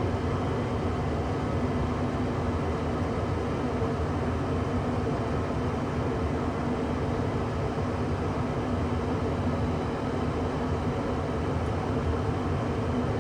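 A 1994 Tempstar SP80 gas furnace running at its first startup of the season, with the cover off: a steady rushing noise with a low hum.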